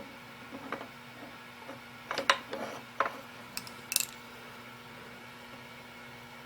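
Small metal lathe parts being handled and slid into place: a few light clicks, then a cluster of sharp metallic clicks and clinks about two to four seconds in, over a steady faint hum.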